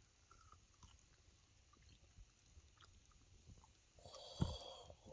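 Quiet, with faint chewing of a mouthful of food. About four seconds in there is a short louder noise with one sharp knock.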